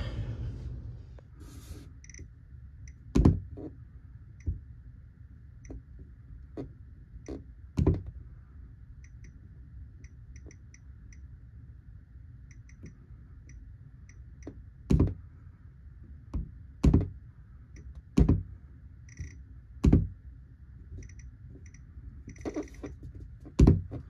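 Soft clicks from a Nest thermostat's ring being turned to change the setpoint, coming in short runs of quick ticks, with several louder dull thumps and a low steady rumble underneath.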